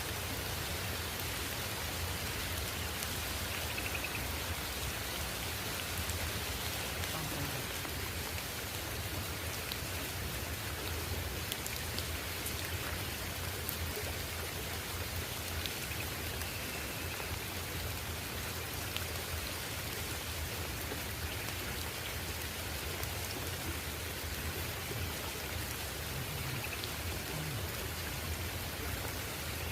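Steady rain falling, with scattered individual drop hits.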